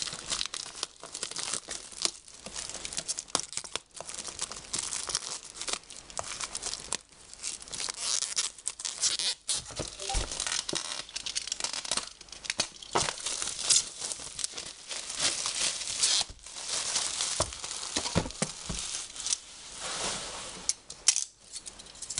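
Plastic shrink-wrap being torn off a cardboard kit box and crumpled by hand: continuous crinkling and tearing, with many small crackles and brief pauses.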